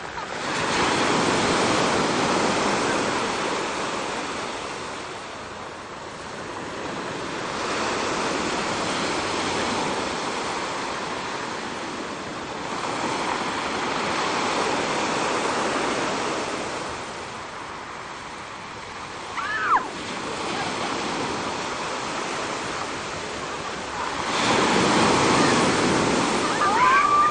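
Ocean surf breaking and washing up the shore, the rush swelling and fading about every five or six seconds. A brief high cry sounds once, about two-thirds of the way through.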